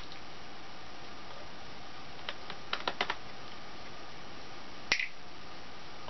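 Small sharp clicks and taps from a Phillips screwdriver and tiny bezel screws on a laptop's plastic screen lid: a quick cluster of clicks two to three seconds in and a single louder click near the five-second mark, over a steady low hiss.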